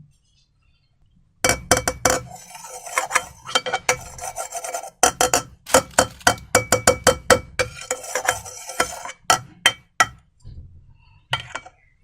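Stirring and scraping in a container while mixing slime: quick, irregular strokes of clicks and rasps. They start about a second and a half in and thin out near the end.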